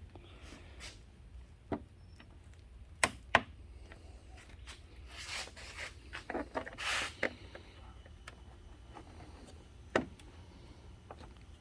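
Scattered sharp plastic clicks and snaps, two in quick succession about three seconds in and another near the end, with bursts of scraping and rustling in between: plastic retaining tabs on an engine shroud being pried up with a small screwdriver and handled.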